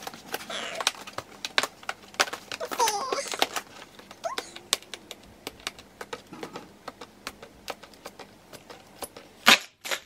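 Fingernails picking and scratching at packing tape on a cardboard box: many irregular clicks and taps, with one louder sharp burst just before the end.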